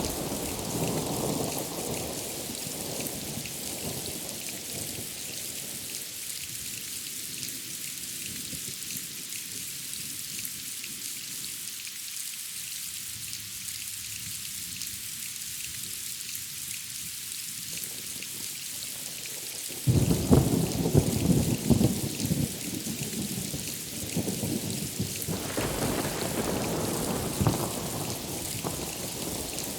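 Steady heavy rain hissing, with thunder: a rumble dying away early on, then a sudden close crack of thunder about twenty seconds in that rolls on for several seconds, swelling again near the end.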